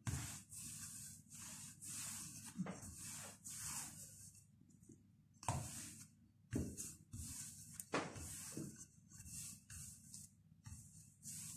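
Wooden rolling pin rolled back and forth over a thick sheet of dough on a silicone baking mat: faint, soft rubbing strokes repeating about once or twice a second, then a few light knocks later on.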